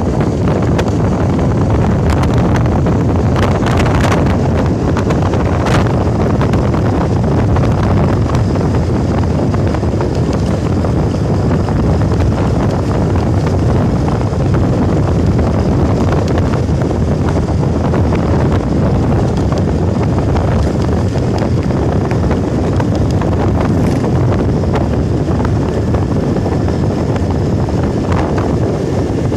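Wind buffeting the microphone: a loud, steady rumbling noise, with a few faint clicks near the start.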